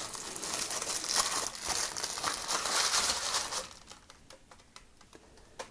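Tissue paper crinkling and rustling as it is pulled off a small statue part by hand. It stops after about three and a half seconds, and a single light click comes near the end.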